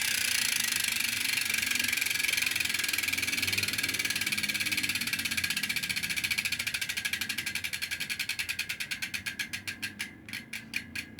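Circus Monkey BMX cassette hub (9-tooth driver, four pawls) freewheeling as the wheel spins down: a fast buzz of pawl clicks that slows gradually into separate clicks, about four a second near the end. The hub still sounds smooth after six years without servicing.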